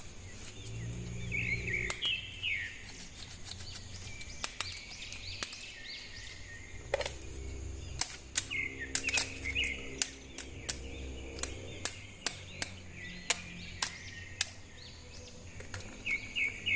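Scattered sharp clicks and taps, typical of plastic action-figure parts and packaging being handled, with birds chirping in the background and a low hum in the middle.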